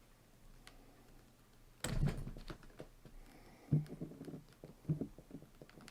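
Handling noise from working on the kayak seat: a sudden knock about two seconds in, two more a couple of seconds apart, and small clicks and rattles between them.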